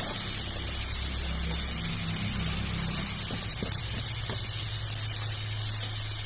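Steady sizzling hiss of hot oil in a cooking pan, green cashew nuts just added to the onion-tomato masala, with a few faint light knocks around the middle.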